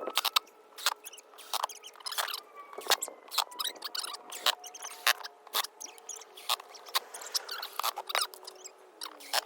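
Irregular clicks and taps, one or two a second, from plastic parts of a kids' ride-on excavator being handled and fitted at the wheels.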